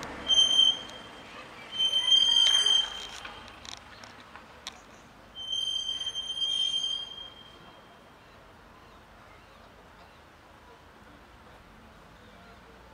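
Three high, steady-pitched squeals. The first is short, near the start; the second lasts about a second, about two seconds in; the third lasts nearly two seconds, about five and a half seconds in. A faint background hum runs underneath.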